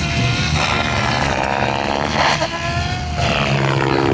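SAB Goblin 700 electric RC helicopter flying aerobatics: the rotor blades whoosh and the brushless motor and gears whine, with swells of blade noise about two and three seconds in and a whine that bends in pitch between them.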